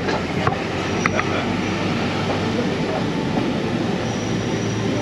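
Running noise of a moving passenger train's carriage, wheels rolling and rattling on the rails, heard through an open compartment window. A couple of sharp clicks come in the first second or so, and a faint high wheel squeal shows up near the end.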